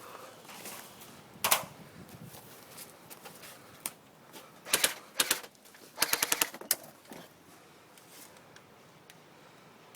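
Airsoft guns firing in short automatic bursts, the longest a rapid run of about eight shots a little past the middle.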